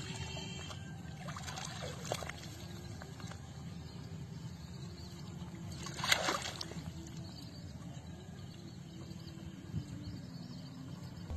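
Muddy pond water sloshing and trickling around a person wading in it, with one sharp splash about six seconds in as the water is churned around her hands.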